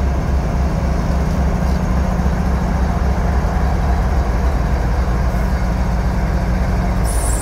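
GE ES44AC diesel-electric locomotive with its V12 diesel engine running steadily as it rolls slowly past at close range, a deep rumble with a constant low hum. A high-pitched squeal starts right at the end.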